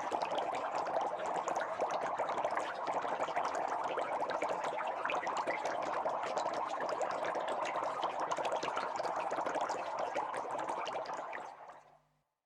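Bubbles in liquid fizzing and popping, a dense steady crackle of many tiny pops that fades out near the end.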